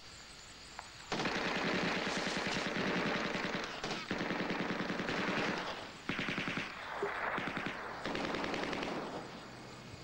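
Rapid automatic gunfire in several long bursts. It starts suddenly about a second in, breaks off briefly twice, and stops shortly before the end.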